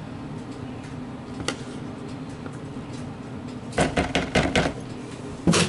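Spatula scraping mayonnaise out of a plastic measuring cup, with a quick run of plastic clicks and knocks about four seconds in and one louder knock near the end, over a steady low background hum.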